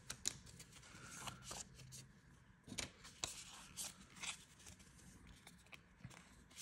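Faint handling of a stack of trading cards: a few soft clicks and brief rustles as the cards are picked up and slid apart by hand.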